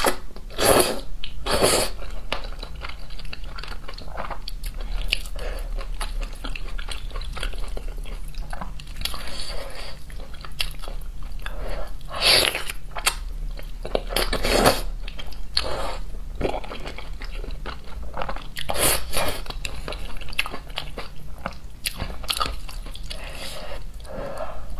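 Close-up eating sounds: thick noodles in sauce slurped and chewed, wet mouth sounds throughout, with several louder slurps at irregular moments.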